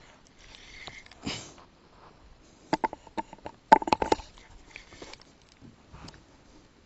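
A spinning rod and reel handled close to the microphone: a quick run of sharp clicks and knocks, loudest about four seconds in. Before them come a couple of short sniffs.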